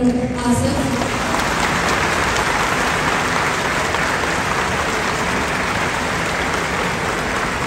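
Audience applauding, steady dense clapping throughout.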